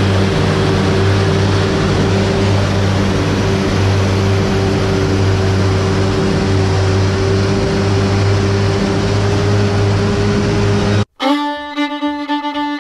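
Self-propelled forage harvester running steadily while chopping, a loud constant machine noise with a low hum. It cuts off abruptly about eleven seconds in and fiddle music begins.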